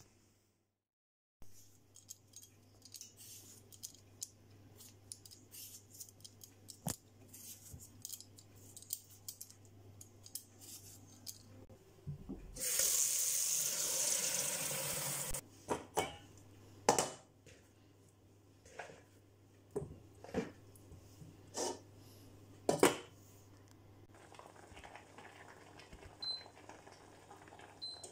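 Kitchen handling sounds: scattered clicks and knocks of utensils, dishes and pans. Midway a tap runs water into a bowl of peeled potatoes for about three seconds. A faint steady low hum sits underneath.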